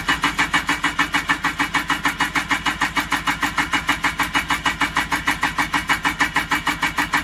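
Two-stroke ATV engine being turned over by its electric starter, cranking in an even rhythm of about seven or eight compression pulses a second without catching.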